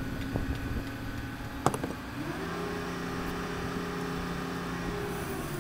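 A single sharp metallic clank, then a heavy-equipment engine revs up about two seconds in and holds a steady pitch, easing slightly near the end.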